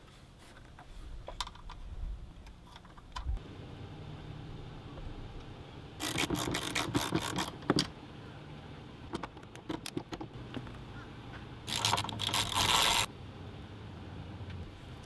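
Hand-tool work on metal: scattered light clinks, then two bursts of rapid metallic clicking, one about six seconds in and one near the end, each over a second long.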